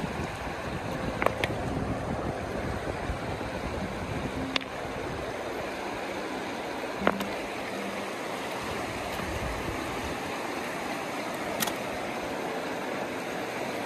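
Shallow river water running over stones, a steady rush, with a few sharp clicks of river stones knocking together as they are turned over by hand.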